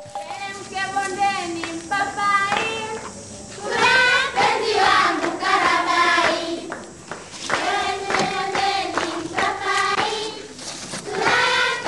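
A group of voices singing a song together, in phrases with short breaks between them.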